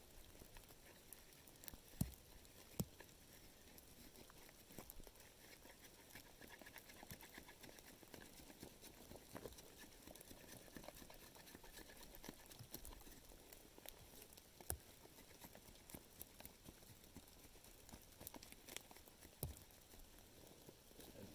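Near silence with quiet knife work on a wooden stick: faint scraping and small scattered clicks, with a few sharper ticks.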